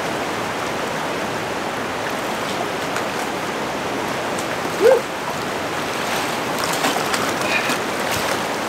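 Steady rush of a flowing mountain creek. A brief yelp-like vocal sound about five seconds in, as a trout is hooked, and a few faint clicks and splashes near the end while the fish is played.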